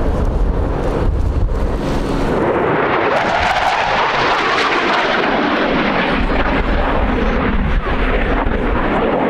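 Dassault Rafale fighter's twin Snecma M88 turbofan engines during a display pass: loud, continuous jet noise with a deep rumble. The noise turns brighter and hissier from about three to six seconds in, then settles back.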